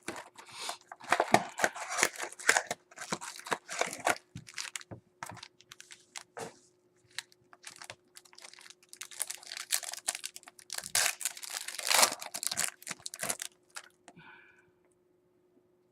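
Trading-card packs being torn open and their wrappers crinkled, with cards handled, in two spells of dense crackling with a pause between. A faint steady hum runs underneath.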